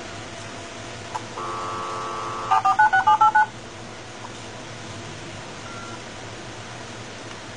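US Robotics dial-up modem dialing out through its speaker: a click, then a dial tone for about a second, then about seven quick touch-tone digits. After the dialing, a faint steady line hiss while the call goes through.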